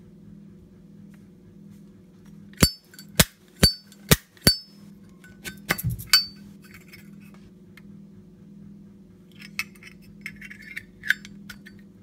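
Zippo Script Logo Black Ice windproof lighter's hinged metal lid clicking and snapping open and shut: five sharp ringing clicks about half a second apart, a quick cluster of clicks after them, then fainter clicks near the end.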